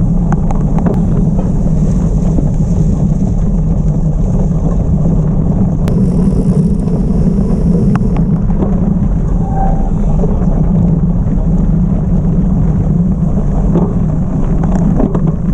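Wind buffeting the microphone of a bike-mounted action camera at race speed, over the rumble of gravel-bike tyres on a dirt road, with occasional sharp clicks and rattles from the bike.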